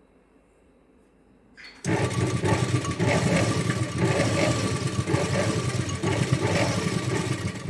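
Sewing machine starting about two seconds in and then running steadily at speed, its needle stitching a line through folded blouse fabric.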